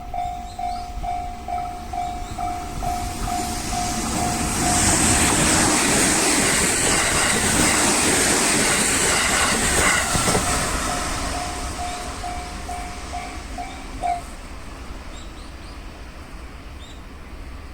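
Level-crossing warning bell ringing about twice a second while a train passes over the crossing. The train's wheel and rail noise swells for about five seconds and drowns the bell, which is heard again afterwards and stops about fourteen seconds in.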